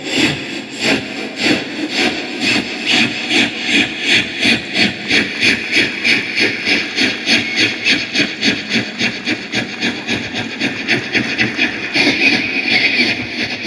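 A man imitating a steam locomotive with his voice: rhythmic breathy chuffs that gather speed as the engine pulls away, from about three to about five a second. About twelve seconds in, a louder, steadier hiss joins the chuffing.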